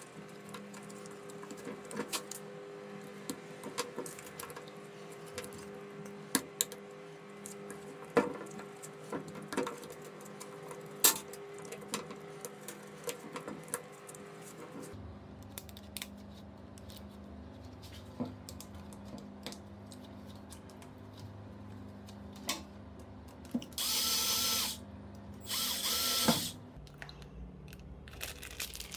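Small metal parts clicking and knocking as they are handled over a steady low hum, then a power drill's motor run twice briefly near the end, about a second each time.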